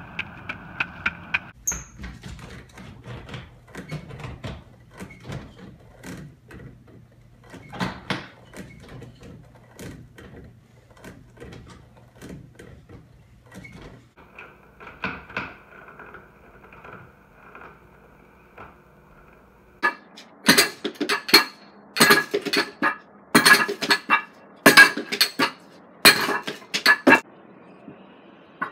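Iron weight plates and lifting gear clanking: scattered knocks and rattles, then a run of loud metal clanks about once a second near the end.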